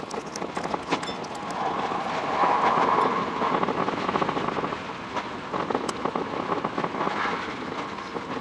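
Tokyo Metro 10000 series train running along the line, with a dense, fast rattle of wheel clicks over the rails; the track sound is sped up about six times. It gets a little louder about two to three seconds in.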